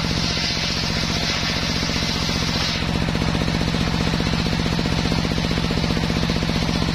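Homemade table circular saw ripping a soft waru-wood board into battens: a hiss of the blade cutting wood for about the first two and a half seconds, then the blade spinning free. Under it the drive motor runs steadily with a hum and a fast, even pulse.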